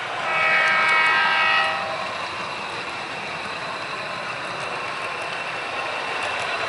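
Model passenger train's horn sounding one blast of about a second and a half, a steady chord, over the steady running noise of the train rolling along the track.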